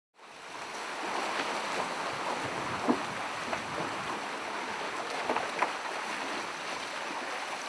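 Water rushing along the hulls of a sailing trimaran, with wind. It fades in at the start and holds steady, broken by a few sharper splashes.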